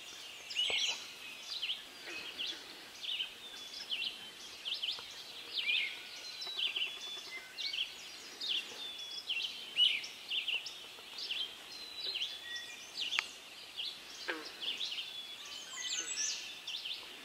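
Dawn chorus of forest songbirds: several birds singing at once, a dense stream of short high chirps and whistled phrases, several notes a second.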